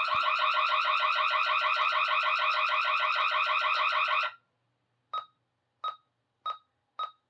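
Fire alarm horn sounding loud with a fast, pulsing buzz, set off by a manual pull station. It cuts off suddenly about four seconds in, followed by four short beeps roughly two-thirds of a second apart.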